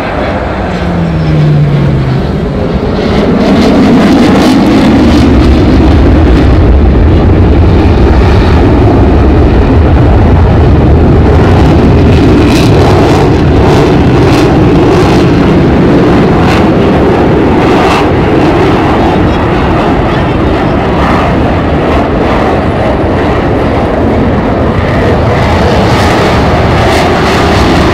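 Jet noise of a HAL Tejas fighter's F404 turbofan as it flies a display pass: a short falling tone about a second in, then a loud, steady deep rumble from about three seconds on.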